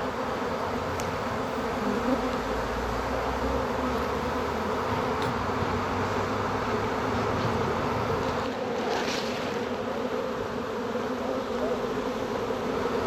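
A honey bee swarm buzzing: the steady, dense hum of thousands of bees.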